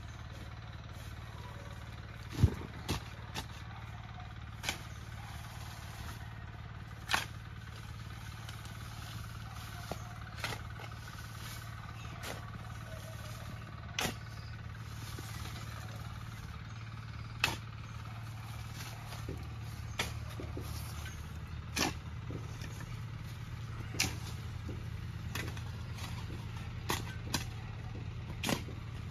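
A steel shovel striking and scraping into loose soil as a grave is filled and mounded over, in irregular strokes every one to three seconds, the hardest thud about two seconds in. Under it runs a steady low hum.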